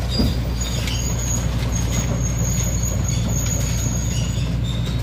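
Heavy truck engine running at a steady low pitch, with a thin high-pitched squeal over it that comes and goes.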